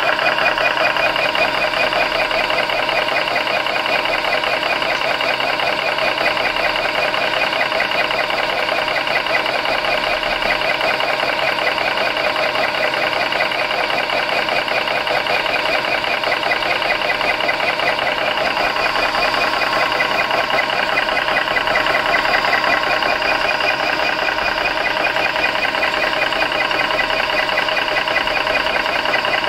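Airmax portable PCP compressor running steadily under load while filling a PCP air rifle's air reservoir, its pump making a fast, even pulsing along with the cooling fan. The sound is quite loud.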